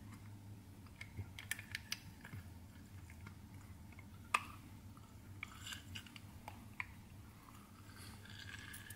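Hinged metal hand-held citrus squeezer pressing an oversized lime half: faint, scattered squishing and crackling of the fruit with small metal clicks, one sharper click a little before halfway.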